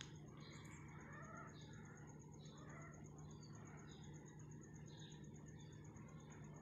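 Faint cat vocalizing from a pair of tabby cats as they break apart from mating. Short faint bird-like chirps repeat throughout, over a steady faint high pulsing tone.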